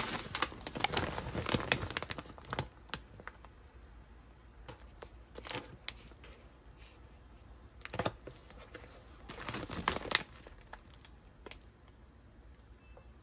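Plastic bags of frozen seafood and dumplings crinkling as they are handled, in bursts: a long spell of rustling at the start, then shorter ones around five and a half, eight and ten seconds in.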